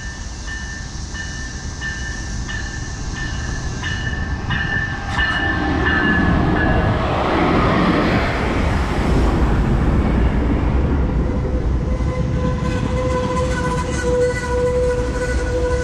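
Amtrak Empire Builder passenger train, led by a GE P42DC diesel locomotive, pulling in past the platform. A bell rings in steady strokes as it nears. The locomotive's passing brings a loud rumble about eight seconds in. Then the double-deck Superliner cars roll by with steady wheel noise and a steady squeal.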